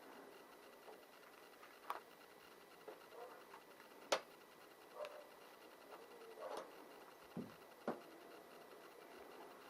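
A few faint clicks and knocks of metal and plastic being handled while the cap and nut of a car's windscreen wiper arm are taken off, with one sharper click about four seconds in.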